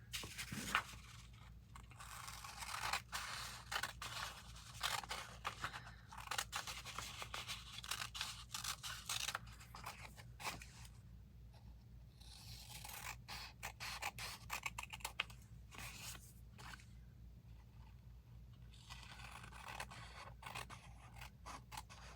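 Irregular scraping, rustling and small clicks of paper and craft materials being handled while a glue-covered work surface is cleaned up, over a faint steady low hum.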